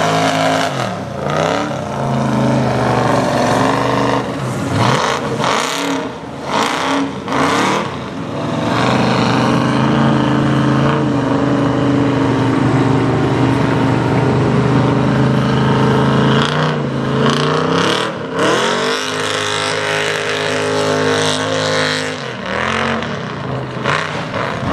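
Mega truck's big engine revving hard under load through mud, its pitch dropping and climbing again several times as the throttle is let off and reapplied, with a long steady full-throttle stretch in the middle.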